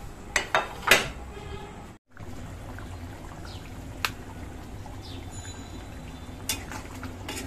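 A few sharp knocks of dishes, then curry simmering and bubbling in a karahi on a gas burner, with a metal spatula clicking against the pan now and then.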